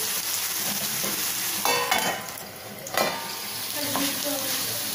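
Raw banana slices sizzling in oil in a nonstick frying pan as a steel spatula stirs and turns them, with a single sharp knock about three seconds in.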